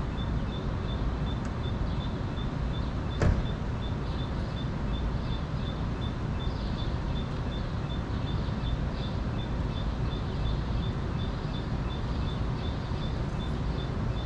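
City street ambience: a steady low rumble of traffic with a high, even beep repeating about three times a second, and one sharp knock a few seconds in.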